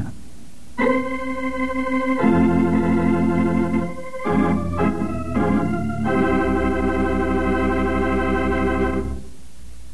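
Organ music bridge of sustained chords, starting about a second in, moving through several chord changes, then one long held chord that ends shortly before the closing narration.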